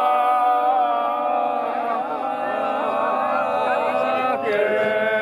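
Music: a steady drone under a melody with quick ornamented turns, changing note about four seconds in.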